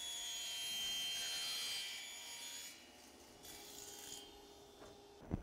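Table saw blade cutting through plywood: a hissing, whining cut that fades out a little after two seconds in, followed by a shorter burst of the same noise a little after three seconds.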